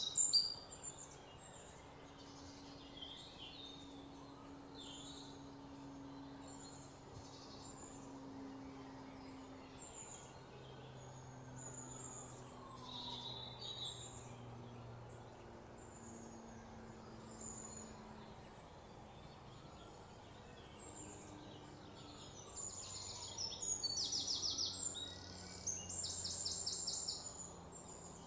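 Birds chirping: many short high calls throughout, with louder rapid trills over the last few seconds, above a faint low steady hum.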